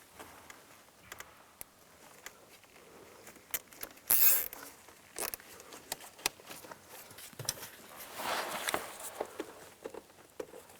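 Scattered clicks and rustling as wiring is handled, with a short loud rasp about four seconds in and a longer rasp around eight seconds as a plastic zip tie is pulled tight.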